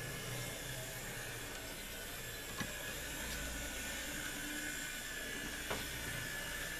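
HO-scale Athearn Blue Box SW1500 model locomotive running on track under a Digitrax DZ126T decoder: a faint, steady motor and gear whir with a thin high whine. Two light clicks come about three seconds apart.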